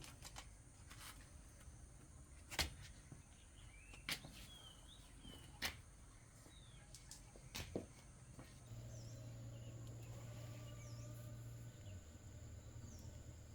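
Faint rural background: a few sharp clicks and scattered bird chirps over a steady high insect drone, changing about nine seconds in to a steady low hum with a few short chirps.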